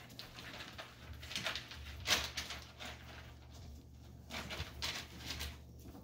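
Chihuahua puppies playing and scuffling on a tile floor: a string of short, irregular scratching and rustling noises, the loudest about two seconds in.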